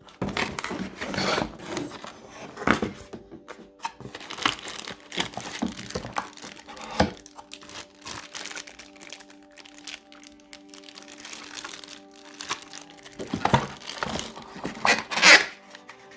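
Packaging being unwrapped and handled, crinkling and tearing in irregular bursts, loudest near the end, over background music with steady held tones.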